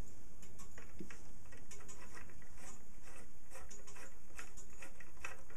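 Light, irregular clicks of a small screwdriver and a 3 mm screw being worked into a wooden pendulum pivot, over a steady low background hum.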